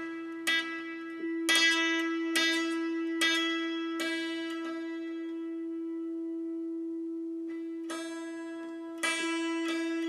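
Santoor strings struck one at a time with a hammer during tuning: single notes ringing out about once a second, a pause of a few seconds in the middle, then quicker strikes again near the end, while a tuning peg is adjusted.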